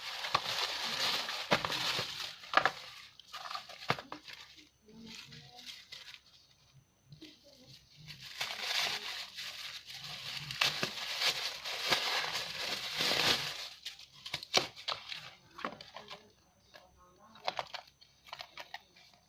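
Plastic packaging being crinkled and torn open by hand, in two long spells with scattered clicks and rustles between.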